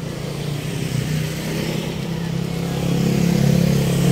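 Engine of a nearby motor vehicle running steadily in slow street traffic, a low even hum that grows louder toward the end, over the general noise of the road.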